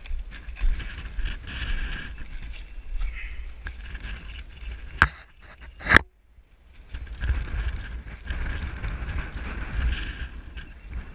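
Wind buffeting an exposed camera microphone, a steady low rumble. About five and six seconds in come two sharp knocks from the camera being handled, followed by a second or so of near quiet before the wind noise returns.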